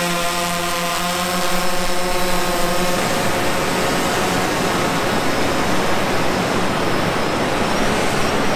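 DJI Phantom 3 quadcopter's propellers whining steadily close overhead as it carries the bait rig out. About three seconds in, the whine fades under a loud, even rush of surf and wind as the drone flies away.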